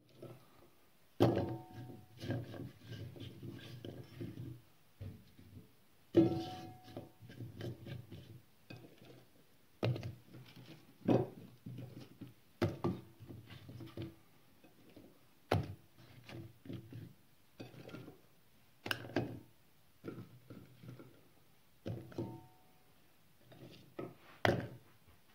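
Raw vegetable pieces set down one at a time into a cast iron pot: a string of irregular knocks against the iron, some followed by a short ringing of the pot.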